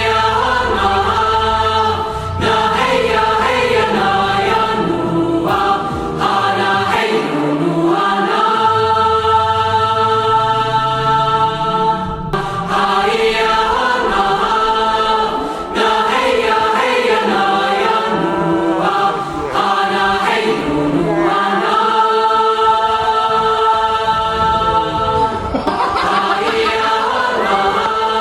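Choral music: a choir singing long held chords with chant-like melodic lines over them.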